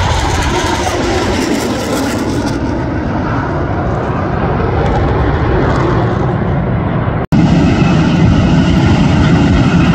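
Jet engines of Blue Angels F/A-18 Super Hornets flying in formation overhead: a loud, steady roar. The sound breaks off for an instant about seven seconds in and resumes as a steady, slightly louder background.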